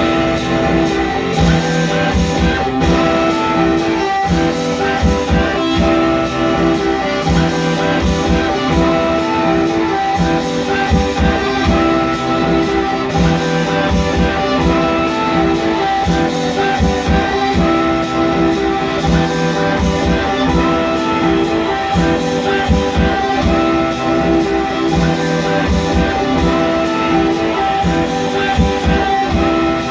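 Electric guitar played live through an amplifier, with a repeating pattern of sustained notes over a pulsing low end.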